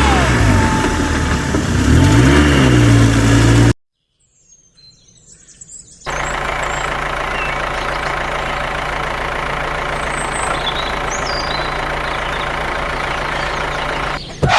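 Edited sound in three parts: loud engine-like sound with rising and falling pitch cuts off suddenly, then near silence with faint bird chirps. About six seconds in, a steady engine hum starts and runs evenly, with birds chirping over it.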